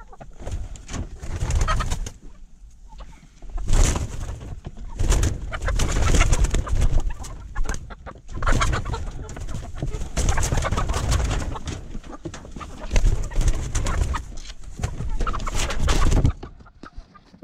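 A flock of red-brown laying hens clucking as they are caught and handled. Irregular bursts of wing flapping and scuffling come and go through it.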